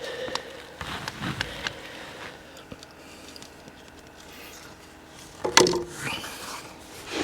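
Handling noises in a small wooden space: scattered light clicks and scrapes, with one louder knock about five and a half seconds in.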